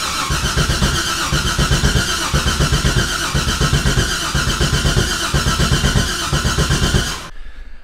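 Freshly rebuilt LS6 V8 turning over on the starter motor without firing, a steady whir with an even chugging rhythm, stopping just before the end. The fuel pump relay is pulled and the coils unplugged, so it cranks only to get oil circulating through the new engine.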